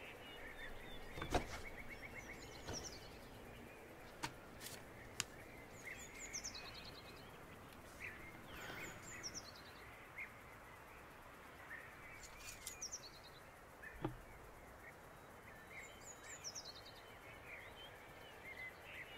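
Quiet outdoor ambience with birds chirping: about four short, high phrases of quick chirps that each fall in pitch, with a few faint clicks in between.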